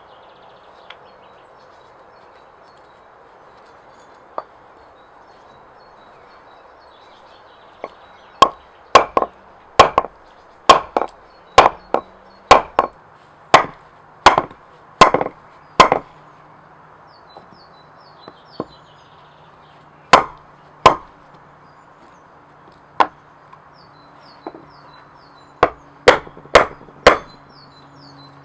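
Heavy, sharp hammer blows striking hard, about two a second for some eight seconds, then a few spaced-out strikes and a quick run of four near the end.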